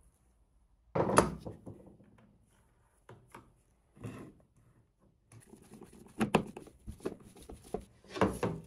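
Handling noises as the small motor-generator bracket and toothed drive belt are fitted on the steam engine's wooden base: a sharp knock about a second in, then scattered clicks and knocks of parts being set down and adjusted.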